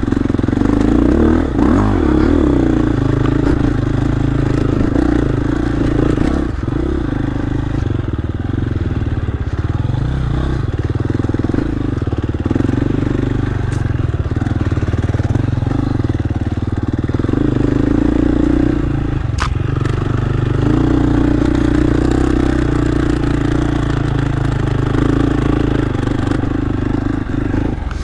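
Dirt bike engine running under changing throttle, its note swelling and easing.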